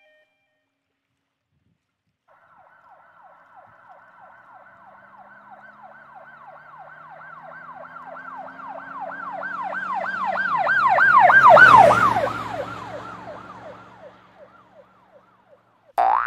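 Emergency-vehicle siren in a fast yelping cycle, with a low vehicle rumble beneath. It comes in about two seconds in and grows steadily louder to a peak about twelve seconds in. It then drops in pitch and fades away as it passes.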